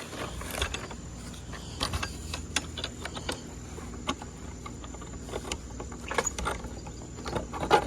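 Irregular clicks and light knocks of equipment being handled, over a steady low hum and a faint high whine.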